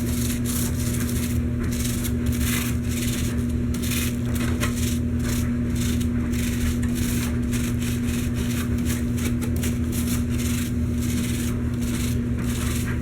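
Foaming coil cleaner crackling and fizzing on a dehumidifier coil, an irregular fine crackle, over a steady low hum.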